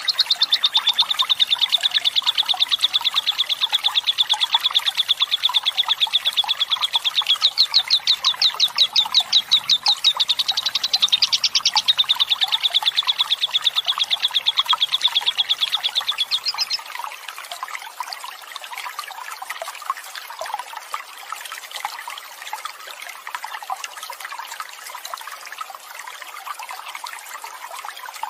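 A lovebird's long 'ngekek' song: a fast, even, high chattering trill held for about seventeen seconds, then stopping abruptly, over a steady rush of flowing water that carries on alone afterwards.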